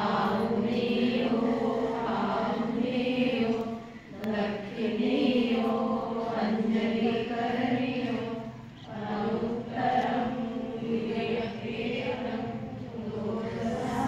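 A group of voices chanting a Buddhist devotional chant together, on a steady pitch in long phrases with short breaks about every four to five seconds.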